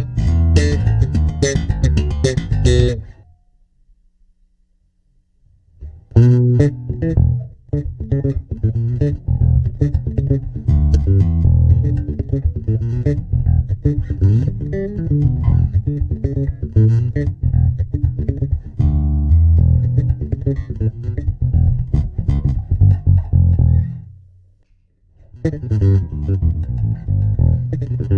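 Electric bass guitar played through a compressor pedal in riffs of plucked notes, stopping for a few seconds about three seconds in and again briefly near the end.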